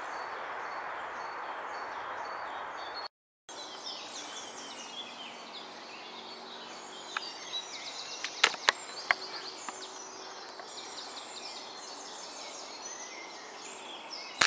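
A steady outdoor hiss that drops out abruptly, then many small birds singing and chirping, with a few sharp clicks about halfway through.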